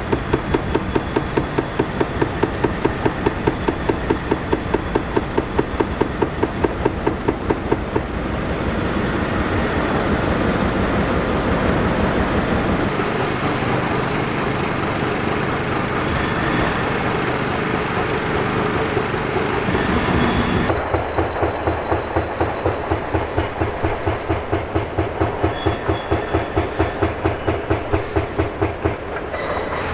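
Heavy diesel machinery running, mostly a steady engine noise, with a regular low pulsing of about four to five beats a second at the start and again from about two-thirds of the way in.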